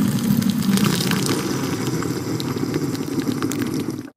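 Instant hot-water dispenser running, its motor humming steadily as hot water pours into a mug with a metal spoon in it. The sound cuts off abruptly near the end.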